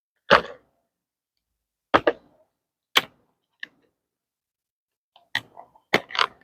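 Irregular sharp clicks and knocks, about eight of them with silence between, from a small flashlight and its packaging being handled and opened.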